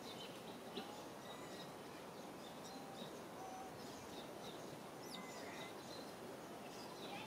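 Outdoor ambience: a steady low hiss of background noise with faint, scattered bird chirps and a few short whistles throughout.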